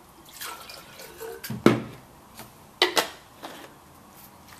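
Water poured from a bottle into a plastic carbonator bottle to rinse it, then several sharp knocks as the bottles are handled and set down. The loudest knock comes about a second and a half in, and two more follow close together near the three-second mark.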